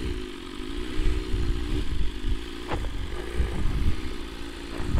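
BMW S1000RR inline-four motorcycle engine running at low revs while the bike rolls slowly, with wind rumbling on the helmet microphone. A short rising squeak cuts in a little past halfway.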